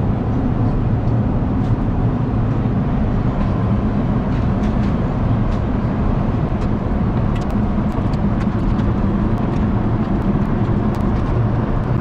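Steady cabin noise of a Boeing 787-9 airliner in flight, the engine and airflow noise strongest in the low range, with a few faint clicks.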